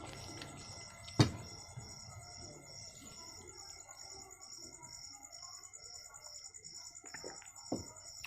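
An insect chirping steadily in an even pulse, about two to three chirps a second. A sharp knock about a second in and a smaller one near the end stand out above it.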